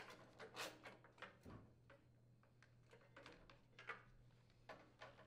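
Faint, scattered plastic clicks and taps as a snowblower engine's control panel is worked loose and handled.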